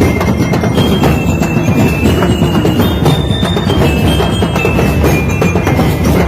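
Ati-atihan festival drum band playing: dense, loud drumming with a high melody of short held notes over it.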